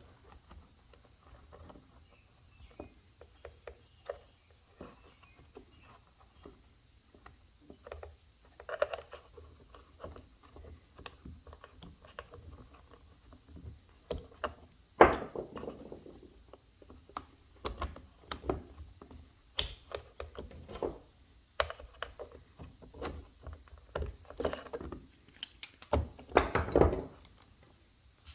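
Scattered clicks, taps and short rattles of needle-nose pliers and small carburetor parts being handled as a carburetor and its throttle cable are fitted back onto a string trimmer. The loudest clatters come about halfway through and near the end.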